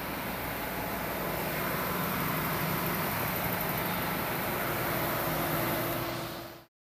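Tugboat engine-room machinery running: a steady mechanical drone with a low hum through it. It cuts off suddenly near the end.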